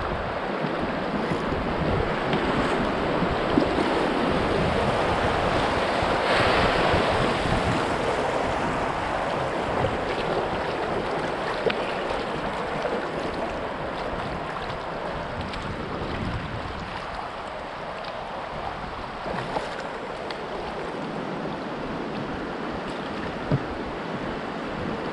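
River water rushing past a kayak through a fast, shallow riffle, with wind buffeting the microphone. The rush swells a few seconds in, then slowly eases toward the end.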